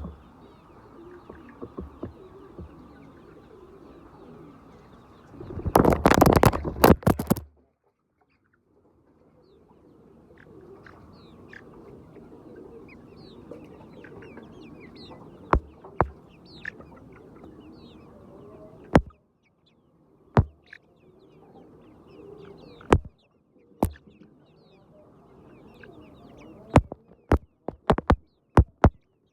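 A flock of chickens clucking and murmuring steadily, with short high chirps over it. A loud burst of noise about six seconds in, and sharp clicks, several close together near the end.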